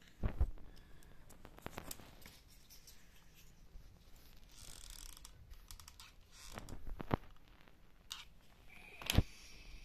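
Scattered small clicks, taps and scrapes of wooden ice cream sticks and a hot glue gun being handled on a table, the sharpest knock about nine seconds in. A short high tone sounds just before the end.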